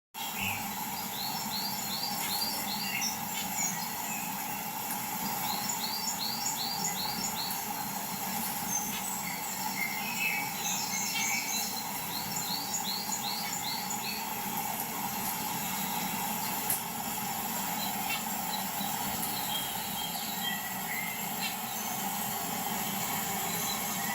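Birds singing: one bird repeats a quick run of about five short notes several times, and other birds chirp in between. Under the song runs a steady background noise with a high, even hiss.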